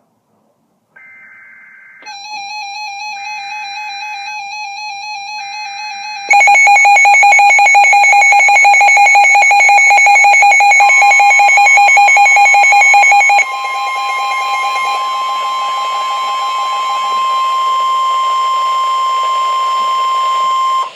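Emergency Alert System weather radio alert tones. It opens with three short squawking data bursts about a second apart, with a warbling alarm tone joining them about two seconds in. About six seconds in, a much louder, rapidly pulsing alarm takes over. Near the middle, the steady single-pitch Weather Radio warning tone begins and holds to the end.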